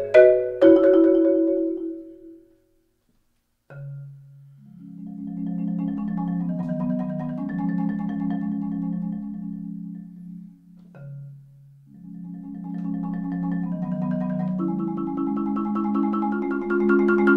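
Solo concert marimba played with four yarn mallets. A loud chord rings away into a brief silence about two and a half seconds in. A low note then leads into soft, sustained rolled chords in the low register, which swell louder again over the last few seconds.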